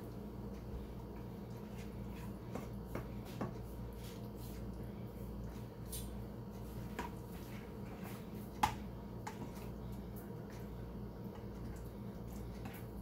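Long-handled spoon scraping and clinking against a nonstick kadai and a glass dish as cooked chicken is served out: scattered light clinks, the loudest a little past halfway, over a steady low hum.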